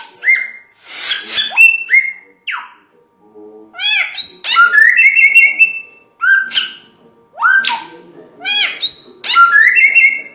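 A samyong songbird singing loudly in repeated phrases, each a short harsh note followed by clear whistled notes that sweep up and down, with short pauses between phrases.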